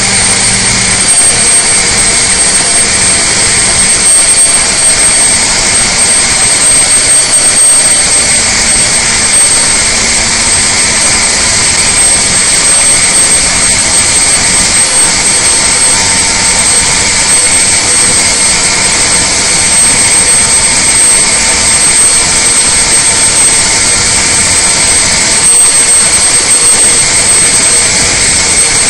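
Detroit Diesel Series 60 inline-six turbo diesel running at full throttle under heavy dynamometer load, held at a steady roar around 1800 to 1950 rpm, with a steady high-pitched whine over it.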